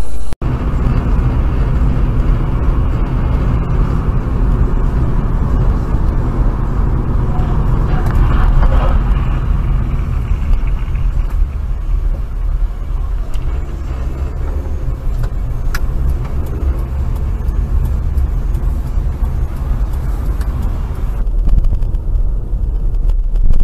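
Steady low rumble of road and engine noise inside moving cars, recorded by dashcams, with abrupt changes where the footage cuts from one car to another, once just after the start and again about 21 seconds in.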